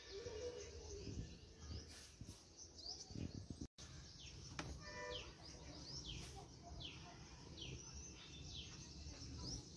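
Small birds chirping, many short falling chirps repeated over a steady low background hum.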